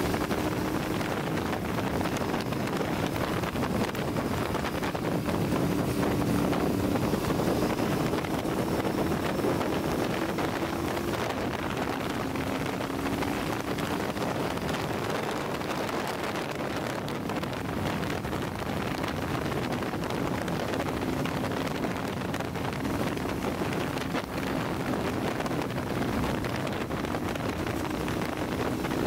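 Sport motorcycle engine running at a steady cruise, its note drifting gently up and down, under heavy wind rush on the microphone.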